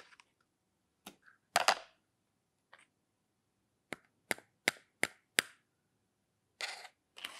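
Hard plastic toy cookware pieces clacking against each other and being set down: a series of sharp clicks, five quick ones about a third of a second apart in the middle, then a short scraping rattle near the end.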